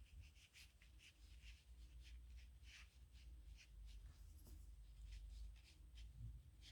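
A dip nib pen scratching across paper in many short, quick strokes while writing.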